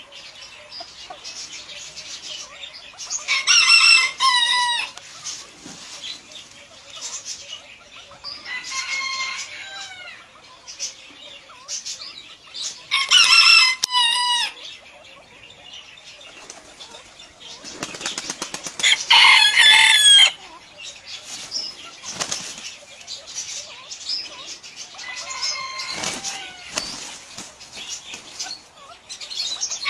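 Rooster crowing five times, each crow a long call that ends in a falling curl, the last one fainter. Between the crows there is a steady patter of wing flapping and scuffling.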